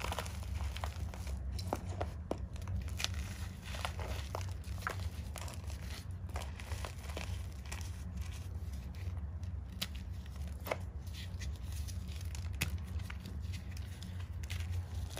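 Hands crushing and crumbling soft chalk blocks and loose chalk powder: dense, irregular crunching and crackling with sharp little snaps scattered throughout, over a steady low hum.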